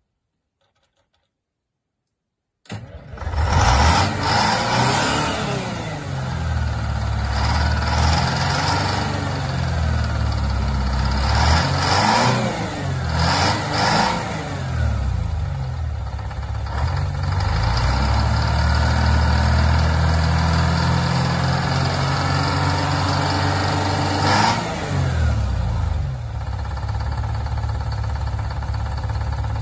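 Ford heavy truck's engine firing up suddenly about three seconds in, then revved up and down several times before settling to a steady idle near the end.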